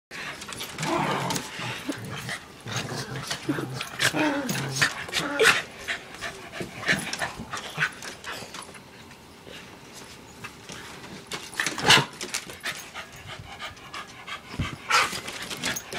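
Two or more dogs playing together: animal sounds for the first several seconds, a quieter stretch in the middle, and sharp knocks about twelve seconds in and again near the end.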